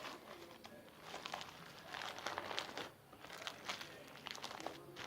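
Confetti slime being squished and kneaded by hand, making irregular crinkly, crackling squelches that come and go in clusters, quieter for a moment about three seconds in.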